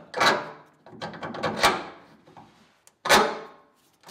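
Three short metallic clanks and scrapes, about a second and a half apart, each fading quickly: the rear shackle bolt and its hardware being worked into a leaf spring shackle.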